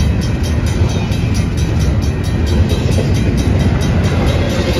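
Double-stack container well cars of a freight train rolling past close by: a steady, loud rumble of steel wheels on rail, with a rapid regular ticking on top, about five ticks a second.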